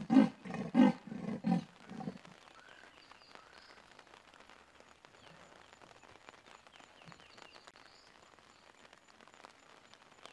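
Female leopard's sawing call: a run of rhythmic rasping strokes, roughly three a second, that ends about two seconds in. The guide thinks it may be meant to draw the attention of the territorial male leopard.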